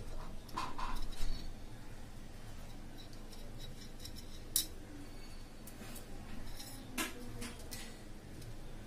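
A few light metallic clicks and clinks of a spoon against a steel plate, the sharpest about four and a half seconds in and again about seven seconds in, over faint hiss.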